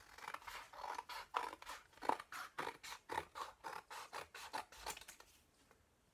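Scissors snipping through thin cardboard in a quick run of short cuts, about four a second, growing fainter near the end.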